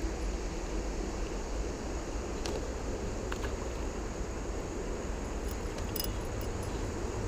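Steady rush of flowing creek water with a deep rumble underneath, broken by a few faint clicks.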